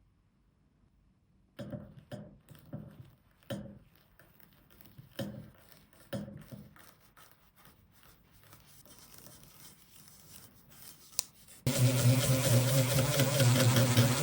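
Small parts being handled, with several light knocks and some faint rubbing, then a sharp click. Near the end a small electric tool starts and runs steadily with a low hum and a hiss, as if sanding or grinding.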